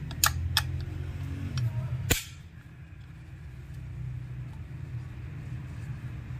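Screwdriver clicking against the screws and plastic housing of a chainsaw's recoil starter cover as the screws are undone, with a few light clicks and one sharp louder click about two seconds in. A steady low hum runs underneath.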